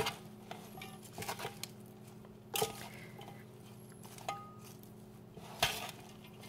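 Metal salad servers tossing leafy salad in a metal bowl: a handful of scattered, light metal-on-metal clinks, some ringing briefly.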